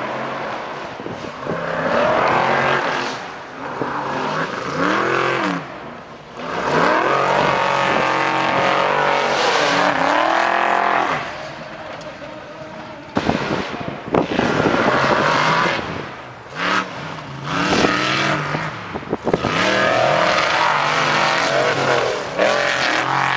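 Off-road racer engines revving hard, the pitch climbing and dropping again and again as the trucks accelerate over the dirt, with a few sharp knocks about halfway.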